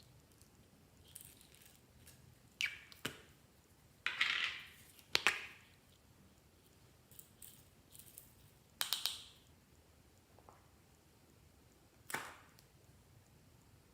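Glossy slime being squished and stretched by hand, giving irregular short sticky pops, clicks and squelches. The loudest come a few seconds in and again around the middle.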